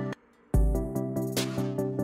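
Electronic background music with a steady beat. It drops out for a moment just after the start, then comes back in with a deep bass hit.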